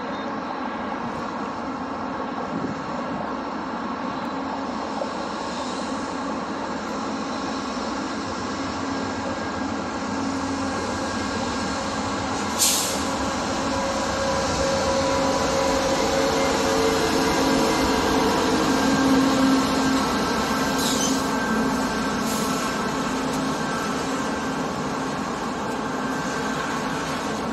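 VIA Rail diesel-hauled passenger train approaching and passing: a continuous rumble of wheels on rails that grows louder, with the locomotive's engine drone loudest as it goes by, then the passenger cars rolling past. A single sharp click is heard about halfway through, and two fainter clicks follow a little later.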